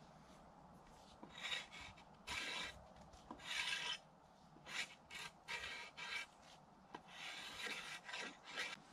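Knife shaving a wooden pole: a run of about ten scraping strokes of uneven length, some quick and some drawn out, as wood is whittled away.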